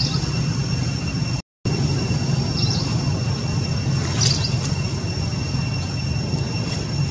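A steady low rumble with two thin, steady high-pitched tones above it, and brief high squeaks about two and a half and four seconds in. The sound cuts out completely for a moment about a second and a half in.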